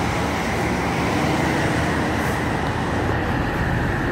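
Steady noise of multi-lane highway traffic, with cars and buses passing.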